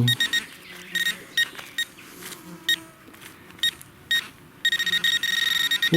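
Metal detector beeping: a string of short electronic beeps, then a continuous tone for over a second near the end as it homes in on a buried coin.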